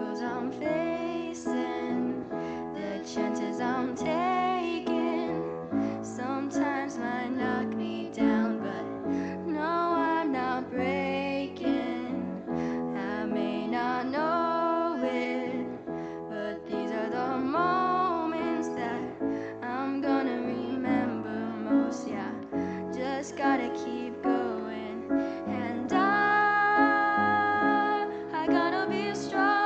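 Young female voices singing with piano accompaniment, holding a long note near the end.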